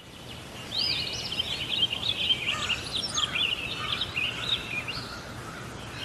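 Bulbul chirping: a quick, chattering run of short, rising and falling chirps that starts about a second in and goes on for some four seconds, over a low steady hum.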